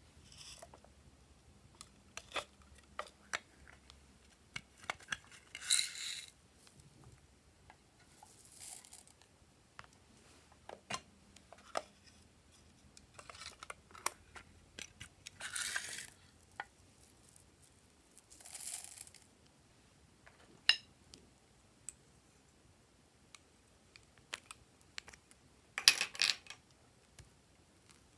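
Clicks and clacks of a small red plastic box being handled and opened, with several short pours of plastic sequins and beads falling into a glass bowl, each pour lasting under a second, the loudest near the end.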